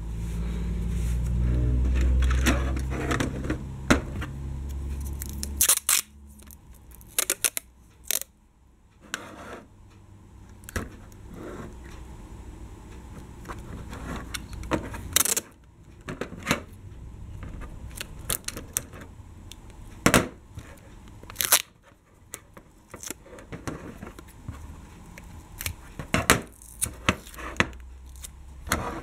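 Clear sticky tape being handled and pressed around the ends of two plastic toy trams: crinkling and scattered sharp clicks and taps of plastic and tape. A louder low rumbling noise fills the first six seconds or so.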